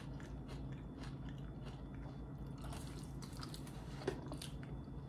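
A person chewing a mouthful of food, with faint wet mouth clicks and smacks scattered through, over a low steady hum. A slightly sharper click comes about four seconds in.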